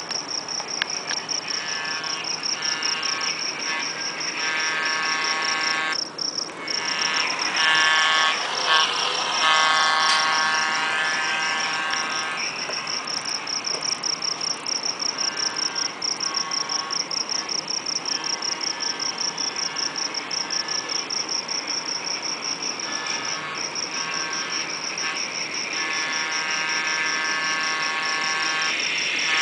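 Electronic sound from an HO-scale model diesel locomotive's Tsunami sound decoder, played through its small onboard speaker. A rapid, high-pitched pulsing tone runs almost throughout. Over it come on-and-off blasts of a multi-note tone, several seconds long each.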